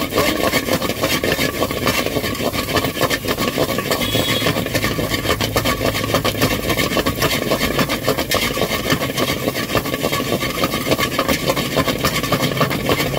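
Slotted metal spatula scraping and clattering rapidly against an iron pan, stirring and chopping scrambled egg, with a steady low engine-like hum behind it.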